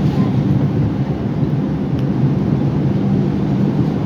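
R142 subway car running at speed between stations: a steady rumble of wheels on rail with a low hum.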